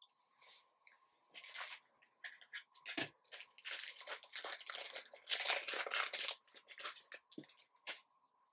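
Thin plastic card sleeves crinkling and rustling as they are handled, in a run of irregular crackly bursts that are busiest in the middle seconds.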